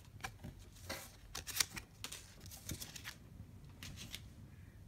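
Pokémon trading cards being handled: a scatter of short, quiet slides and flicks of card against card as they are moved between the hands and set down.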